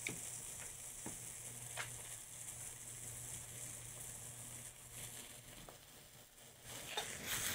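Faint sizzling of shredded king trumpet mushrooms frying dry and hot in a pan, with a few light taps as corn tortillas are turned by hand in a cast-iron skillet. The sizzle gets louder near the end as the mushroom pan is handled.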